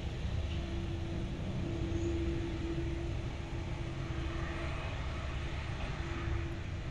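Twin turbofan engines of an Embraer E-Jet airliner running as it rolls along the runway: a steady low rumble with a faint steady hum.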